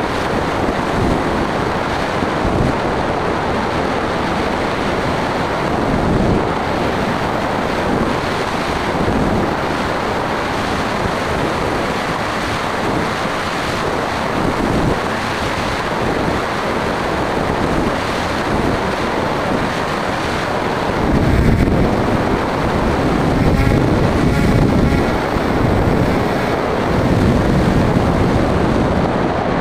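Wind rushing over the microphone of a camera mounted on a small aircraft in motion, growing louder about two-thirds of the way in.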